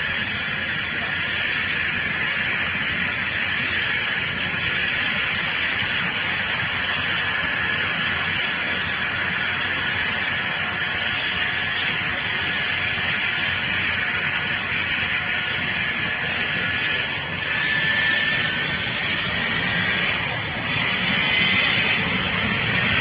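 Eurocopter EC135 air-ambulance helicopter running on the ground: a steady high turbine whine over a low rotor thrum, growing a little louder near the end.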